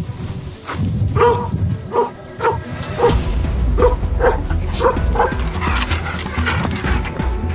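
A dog barking repeatedly, about two barks a second, over background music whose bass comes in about three seconds in.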